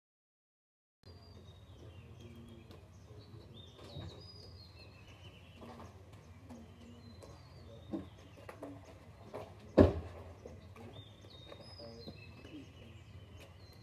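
Small birds chirping over a low outdoor hum, with a few light knocks as things are put into a hatchback's boot, then a loud single thump about ten seconds in as the car's tailgate is shut.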